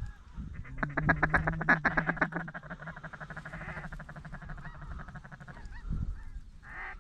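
Ducks calling: a fast, chattering run of short quacking notes lasting several seconds, then a few separate calls near the end.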